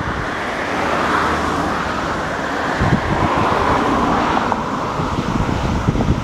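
Steady outdoor background noise, with wind buffeting the microphone in irregular low thumps from about three seconds in.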